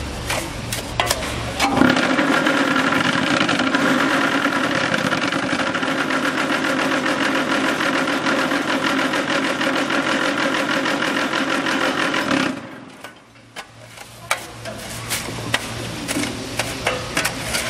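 Vibration motor of a small hollow concrete block machine running, shaking the mould box as the concrete mix is fed in: a loud, even buzz that starts about two seconds in and cuts off suddenly about two-thirds of the way through. Around it, a low hum and the clicks and scrapes of the mix being raked across the mould.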